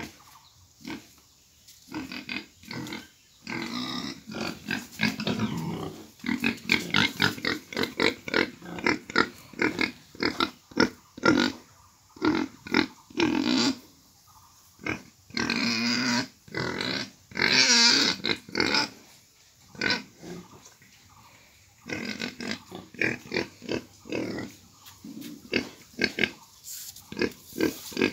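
Pigs calling in quick, short grunts, with a few longer, louder and shriller calls about two-thirds of the way through.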